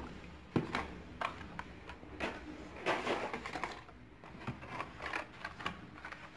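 Hot Wheels blister packs, plastic bubbles on cardboard cards, being handled and pulled out of a cardboard case: scattered clicks and taps with short bursts of rustling at uneven times.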